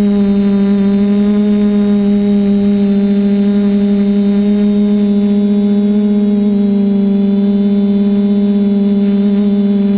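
A TBS Discovery clone quadcopter's electric motors and propellers running steadily, heard close from its onboard GoPro: one loud, even hum with a faint high whine above it, its pitch wavering only slightly as the throttle shifts.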